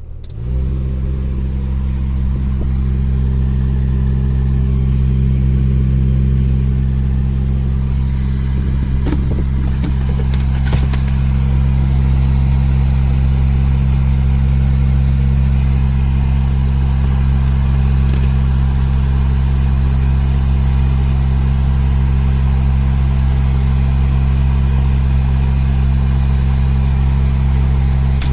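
Steady low hum from a car's AC blower motor, starting about half a second in and holding steady: the abnormal blower noise. A few faint clicks come around ten seconds in.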